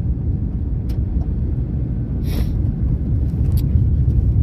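Steady low road and engine rumble inside a moving car's cabin, with a short click about a second in and a brief hiss about two seconds in.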